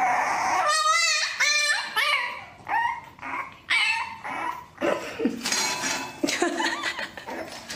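French bulldog puppy whining and yipping, a string of short high-pitched cries, some wavering, coming one after another.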